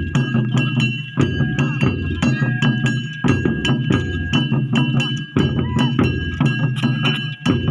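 Traditional percussion music accompanying a Santhali Paika dance. It has a fast, steady beat of sharp strikes over a deep drum pulse that breaks off briefly about every two seconds, with a held high tone running over it.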